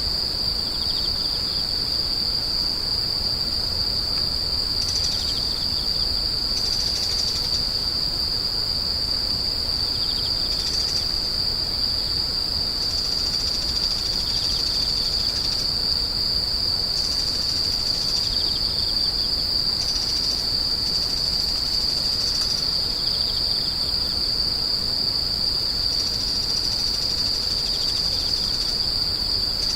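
Grass insects such as crickets trilling in a continuous high-pitched drone, with fainter sounds coming and going over it every few seconds.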